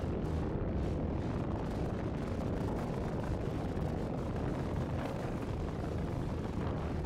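Dense, rumbling noise drone from a Eurorack modular synthesizer patch: a Pittsburgh Modular Game System fed through a Make Noise Morphagene and a Mimeophon delay. It runs steady, with no clear pitch and a faint flickering grain on top.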